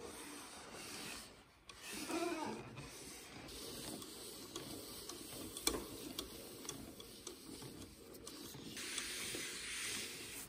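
A paper towel rubbing over the carved twisted stem of a wooden goblet, wiping on a finish by hand, with a few small clicks along the way. The rubbing gets brighter and hissier near the end as the towel is bunched against the wood.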